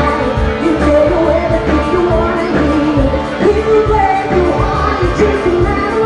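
Live band playing a pop-rock song, with a woman singing lead into a microphone over a steady bass and drum beat.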